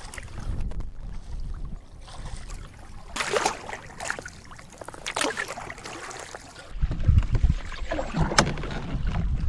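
Canoe paddle strokes in the water, a splash every two seconds or so, over a low rumble.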